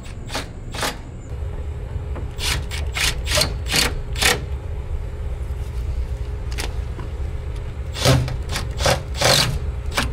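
Irregular sharp clicks and knocks, some in quick runs, over a steady low rumble. The sound cuts off abruptly at the end.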